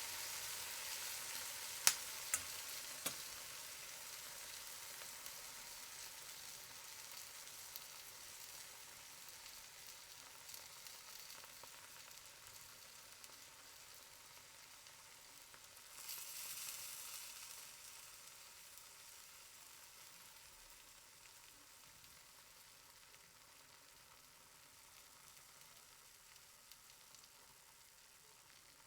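Eggs frying in a pan: a steady, high sizzle with a few sharp pops in the first few seconds. It swells briefly a little past halfway, then keeps slowly dying down.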